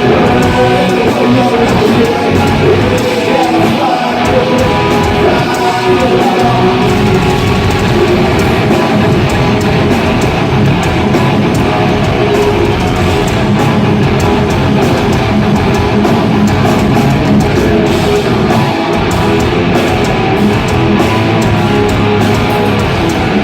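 Electric guitar and drum kit playing heavy rock together, loud and continuous.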